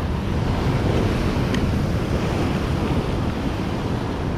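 Heavy surf breaking and washing over sea rocks, a steady loud rush, with wind buffeting the microphone.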